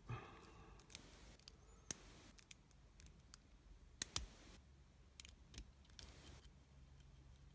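Lock pick and tension tool working the pin tumblers of a 5-pin Viro padlock during single-pin picking: sharp, irregular metallic clicks, about eight of them, the loudest about four seconds in.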